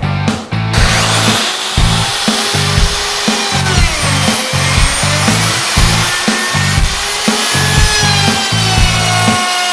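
Hand router running and cutting wood, starting about a second in. Its high whine dips in pitch around four seconds in and then recovers. Rock background music with a steady beat plays underneath.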